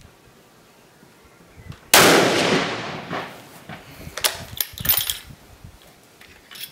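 A single shot from a Sauer S 101 bolt-action rifle in .308 Winchester about two seconds in, echoing and dying away over about a second under the range roof. A couple of seconds later come sharp metallic clicks as the bolt is worked to eject the spent case and chamber the next round.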